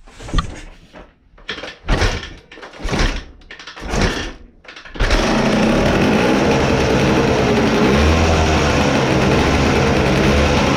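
1974 Yamaha DT250A's single-cylinder two-stroke engine being kick-started: several kicks about a second apart, then it catches about five seconds in and keeps running steadily. It is starting after sitting for a long time without being worked on.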